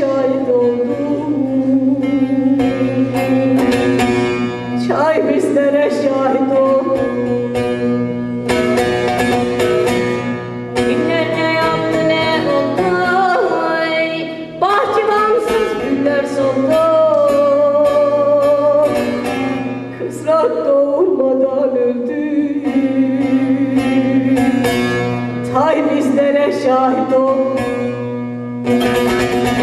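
A woman singing a Turkish folk song in long phrases with a wavering pitch, accompanying herself on a plucked bağlama (long-necked saz).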